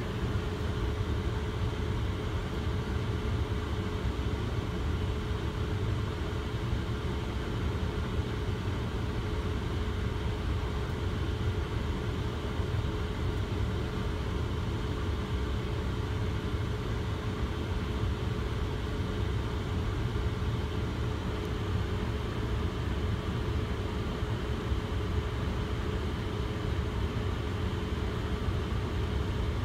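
Car engine idling, heard from inside the cabin as a steady low rumble with a constant hum over it.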